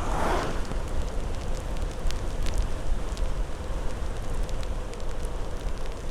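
Wind buffeting the microphone and the hiss of tyres on a wet road while riding a bicycle in the rain, with scattered small clicks of spray and raindrops.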